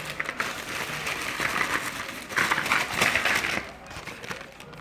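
Plastic packaging crinkling and rustling as it is handled and opened, in irregular bursts, loudest in the middle.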